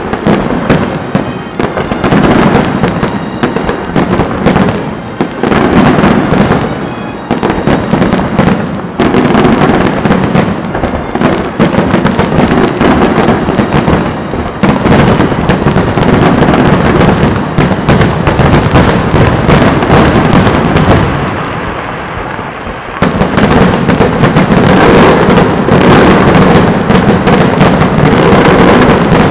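Fireworks display at full barrage: a dense run of bangs and crackling bursts, one after another. It eases briefly about three quarters of the way through, then picks up again.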